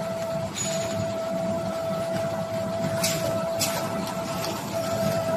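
Automatic wipes-sachet packaging machinery running: a steady mechanical hum with a constant whine, broken by a few short hissing bursts.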